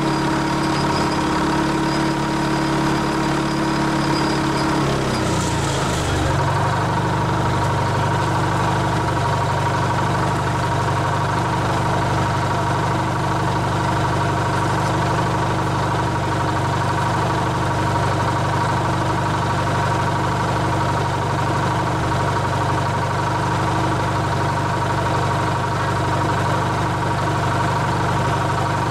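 Crane's engine running, its speed changing about five seconds in, then idling steadily.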